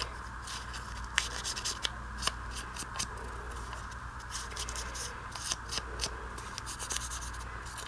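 Foam ink blending tool rubbed and dabbed along the torn edges of a small piece of book page, giving a run of short, irregular scratchy rubs and paper crinkles over a steady background hum.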